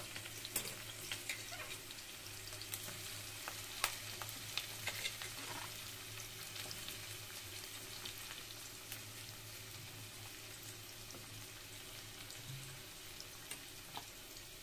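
Sliced onions sizzling and crackling in hot oil in a pot, freshly added to the pan. The crackles are thick at first and slowly thin out as the sizzle settles to a steady hiss.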